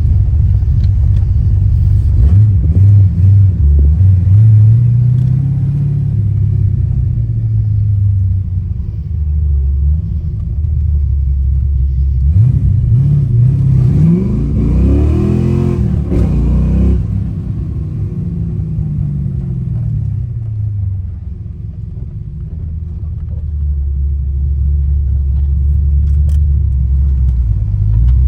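Ford Foxbody Mustang engine running at idle, revved up once about halfway through, its pitch rising and then falling back over several seconds before it settles to a steady idle again.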